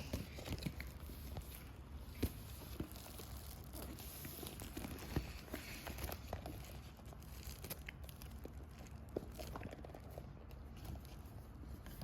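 Faint handling sounds of a smartwatch's box and packaging being unboxed: scattered small clicks and taps with light crinkling.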